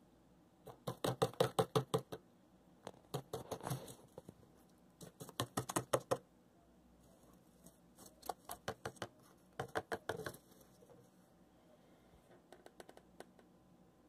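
Cockatiel drumming its beak rapidly on cardboard like a woodpecker, in six bursts of about eight quick taps a second, each burst lasting about a second, with pauses between them.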